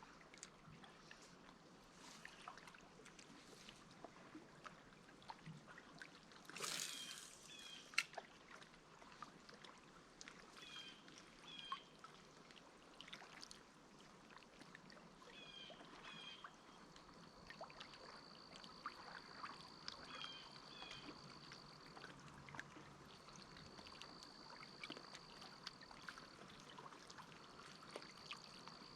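Faint water sounds around a kayak: small knocks and drips, with a louder splash about seven seconds in. A bird repeats a short two-note call several times, and a high, steady buzz sounds in three long stretches in the second half.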